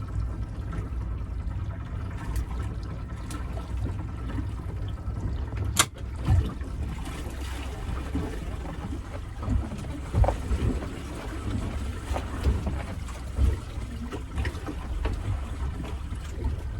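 Water slopping and lapping against a small boat's hull, over a steady low rumble, with a sharp click about six seconds in and irregular sloshing bumps after it.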